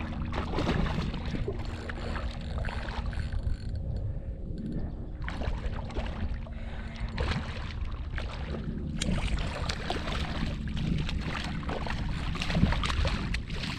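A hooked redfish thrashing and splashing at the surface of shallow water while being fought on a fishing rod, in irregular splashes throughout.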